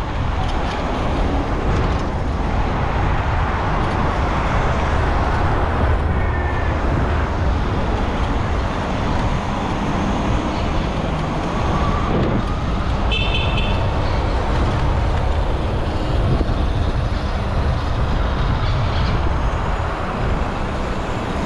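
Steady wind rush on the action camera's microphone while riding an e-bike through city traffic, with the general noise of passing road traffic. About 13 seconds in comes one short high beep or toot.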